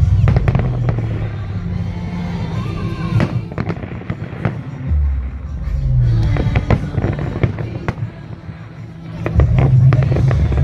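Fireworks display going off: clusters of sharp crackling cracks over heavy low booms, easing briefly about three-quarters of the way through before building again.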